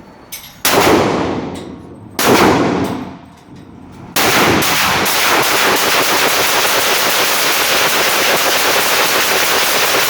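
Two FN 5.7x28 mm pistols firing: a few single shots, each ringing out, then from about four seconds in rapid fire from both guns, the shots running together into a continuous racket.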